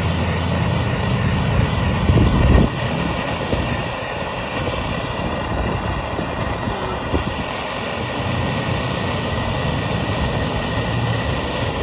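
Small handheld soldering torch burning with a steady hissing flame, heating a wire splice to melt the solder in.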